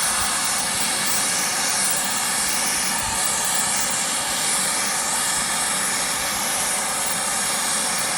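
Brazing torch flame hissing steadily as it heats a copper refrigerant-line joint on a replacement compressor.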